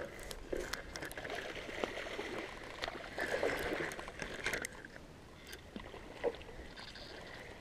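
Spinning reel being cranked to bring in a hooked channel catfish, with faint small clicks and a light trickle of water.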